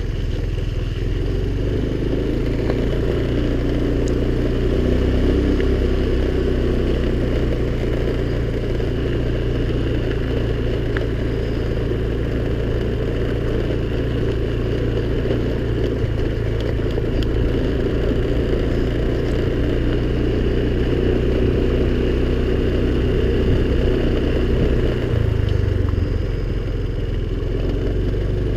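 Small Honda scooter engine running steadily while being ridden.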